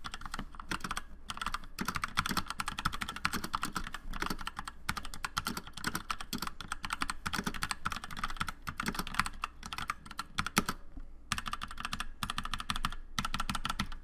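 Fast, continuous typing on a Drevo Durendal full-size mechanical keyboard with Outemu Red linear switches and double-shot ABS keycaps: a dense clatter of keystrokes, with a short pause about eleven seconds in.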